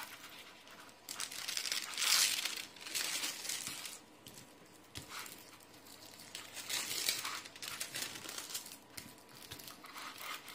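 Hands smoothing and pressing a creased diamond painting canvas flat, its plastic cover sheet crinkling and rustling in two main bouts.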